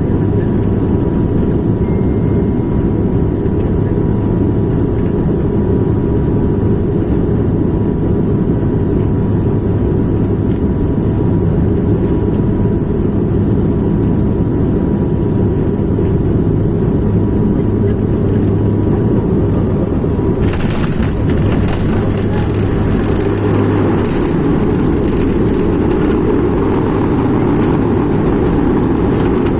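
Airplane engine and airflow noise during a landing: a steady, loud low roar with a few fixed tones. About twenty seconds in, a run of rattling knocks and louder hiss sets in, and a low hum drops out a few seconds later, as fits touchdown and rollout.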